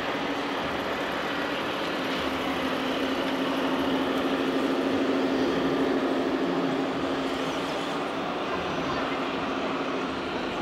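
Radio-controlled scale crawler truck's electric motor and gearbox giving a steady hum as it drives over dirt. The hum swells in the middle. The murmur of a crowd runs behind it.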